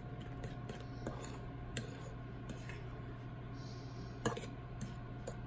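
Metal fork stirring egg and mashed banana batter in a ceramic bowl, the wet mix squelching with irregular light clicks of the fork against the bowl and one sharper knock about four seconds in.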